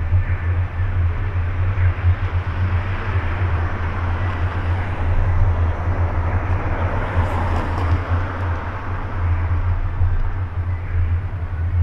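City street ambience: a steady low traffic rumble with the noise of passing cars, swelling briefly about two-thirds of the way through.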